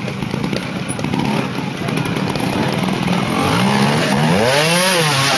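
Trials motorcycle engine running at low revs over the rocks. About three seconds in, the throttle is opened: the revs climb sharply to a peak and drop back as the bike is lifted onto a boulder.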